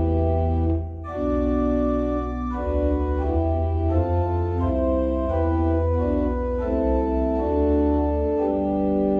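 Organ playing a hymn on manuals and pedals: sustained chords moving in steps over a deep pedal bass, with a brief break between phrases about a second in.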